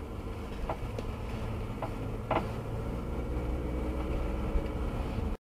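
Car cabin noise picked up by a dashcam: a steady low engine and road rumble as the car drives, with a few short clicks. It cuts off suddenly near the end.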